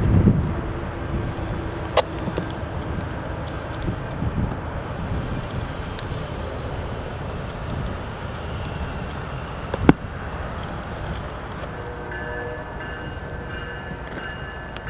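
Diesel freight locomotive running steadily, with a sharp click about two seconds in and a louder one about ten seconds in.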